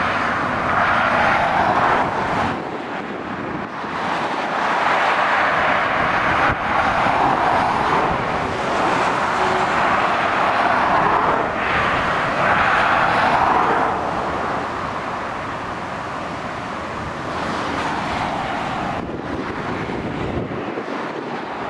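Motorway traffic passing: the tyre and engine noise of lorries and cars rises and fades as each vehicle goes by, in several separate swells.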